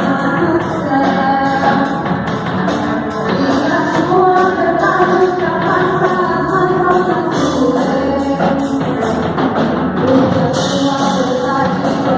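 Gospel praise song performed live: voices singing over band accompaniment, with a steady percussion beat.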